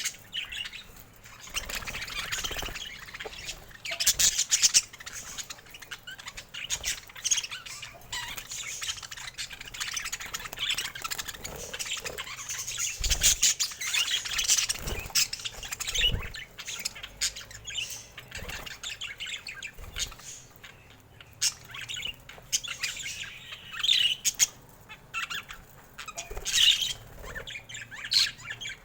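Budgerigars chirping and squawking in a busy, continuous chatter of short, quick calls, with a few soft thumps in between.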